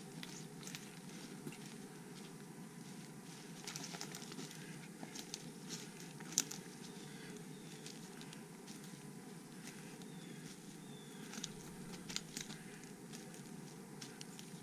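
Footsteps crunching and crackling through dry leaf litter and twigs on a forest trail, irregular, with one sharper snap about six seconds in.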